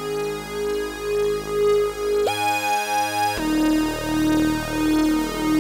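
Waldorf Blofeld synthesizer playing a piercing wavetable sync-style 80s lead patch through a flanger, over a held low note. About two seconds in, the lead slides up to a high note and holds it for about a second, then drops to a lower note.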